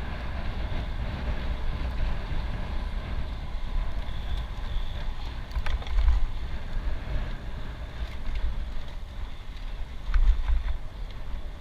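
Wind noise buffeting the microphone of a camera on a moving road bike, over the hiss of tyres on the paved road, with two stronger gusts about six and ten seconds in.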